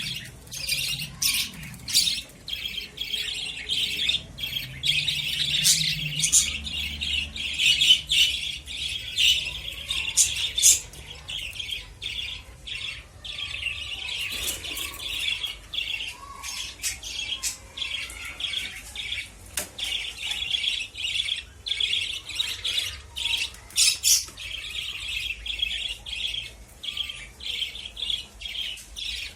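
A roomful of caged lovebirds chattering, with constant shrill chirps and squawks overlapping from many birds at once.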